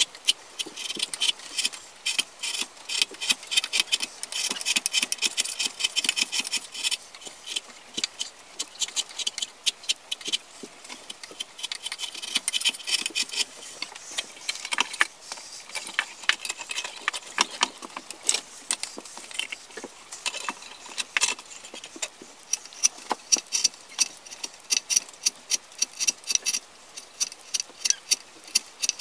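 A chisel paring a wooden cup blank by hand: a long run of short, crisp cutting strokes as shavings come off the wood.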